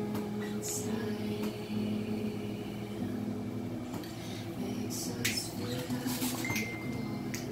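A woman singing a slow, mellow song to her own acoustic guitar, held notes shifting every second or so.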